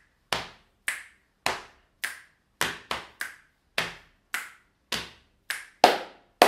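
Body percussion: thigh slaps and finger snaps alternating in a steady beat, a little under two strokes a second, with a few quicker strokes in the middle. Near the end come two louder hand claps.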